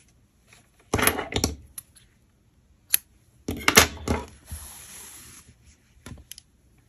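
Close handling noises from fastening off a chunky crochet piece: a few sharp knocks and clicks, about a second in, near three seconds and around four seconds, with a soft rustle of yarn in between.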